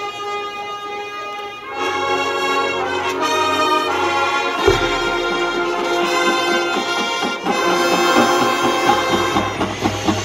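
Marching band playing: brass sustaining full chords that grow louder and fuller about two seconds in, with a deep low hit about halfway through.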